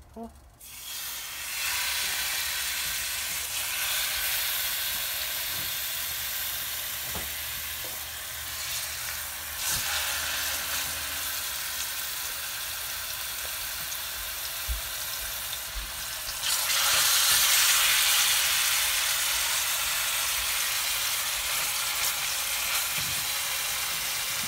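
Stuffed chicken breasts sizzling in a little hot oil in a stainless steel frying pan, the sizzle starting about a second in as they go into the pan. It grows louder about two-thirds of the way through as a third piece is laid in.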